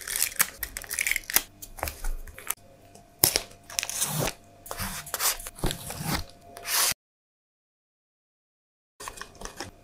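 Close-up handling noise of paper craft work: gloved fingers rubbing, dabbing and pressing on a paper tag and a small plastic pot, heard as a string of short scrapes, crinkles and clicks. The sound cuts off abruptly about seven seconds in and comes back briefly near the end.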